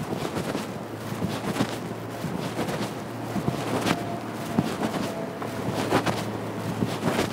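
City street ambience heard while walking along a road: a steady low traffic hum under a wash of noise, with scattered sharp clicks and knocks.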